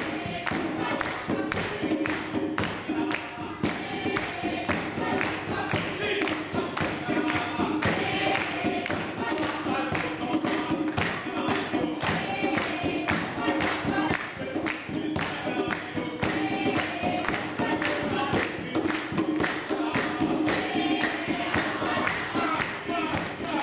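A choir singing to a steady beat of about three strokes a second.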